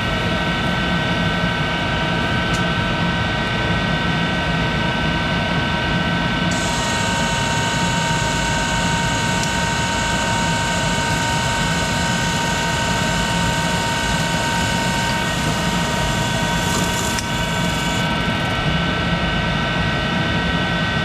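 1951 Monarch 10EE lathe running steadily through a power-feed cut, a constant mechanical whine made of several steady tones over a noisy base.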